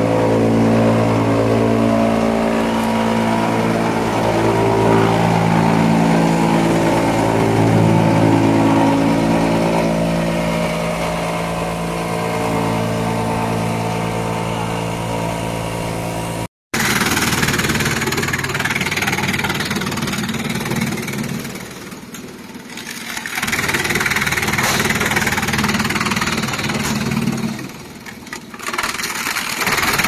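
Industrial wood chipper running. First comes a steady machine drone from the chipper line. After an abrupt cut about halfway through, a noisier drum chipper with a large electric motor chips wood, its sound dropping away briefly twice.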